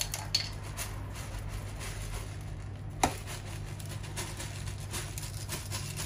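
Light clicks and knocks from handling a plastic jar of slow-release fertilizer pellets, with one sharper click about three seconds in.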